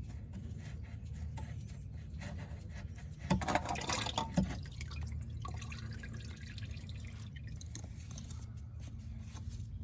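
Used engine oil dripping and trickling from the engine into a drain pan, with a short cluster of knocks a few seconds in.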